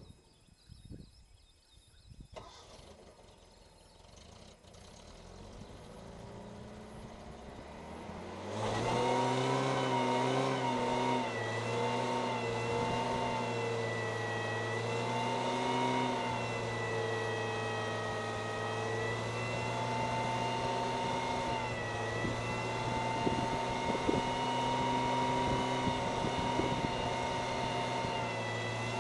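Datsun Stanza's engine revving up, then held at high revs for a burnout from about eight seconds in, with the rear tyres spinning and squealing. The note stays loud and steady with a slight waver.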